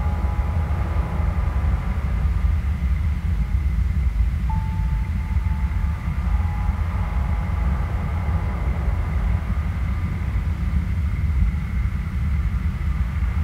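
Dark ambient drone soundscape: a heavy, steady low rumble with faint drawn-out high tones hanging above it, and a brief thin tone entering about four and a half seconds in.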